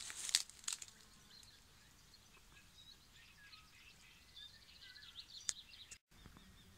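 Small songbirds chirping and trilling faintly, with a few rustling steps through grass in the first second and one sharp click about five and a half seconds in.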